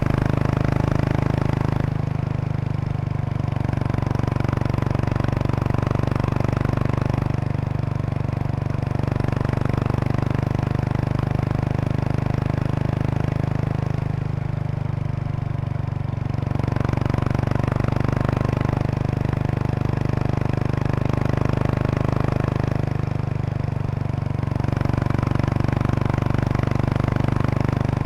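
Exhaust of a 2003 Kawasaki Estrella RS, a 250 cc air-cooled single-cylinder four-stroke through an aftermarket Yamato muffler, while it is ridden at an easy pace, the note swelling and easing every few seconds with the throttle. A light buzzing rattle comes from the seat bag's stiffener plate resonating with the engine's vibration.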